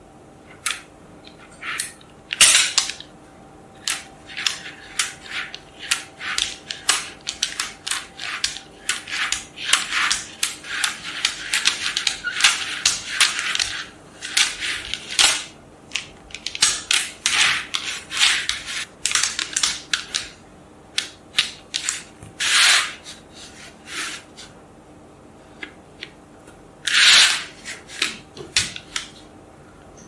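Small magnetic balls clicking and snapping together as hands join them into a flat sheet: many sharp, irregular clicks, with a few longer rattles about two seconds in, near 23 seconds and near 27 seconds.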